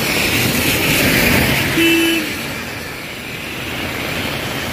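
A road vehicle passing on a rain-wet road, its tyre hiss swelling and then fading, with a brief horn toot about two seconds in.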